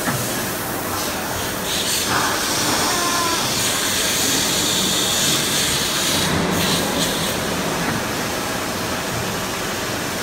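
CNC press brake backgauge traversing on its rails: a steady mechanical running noise with a hiss that grows louder for a few seconds in the middle, and faint falling whines as the servo-driven axes slow.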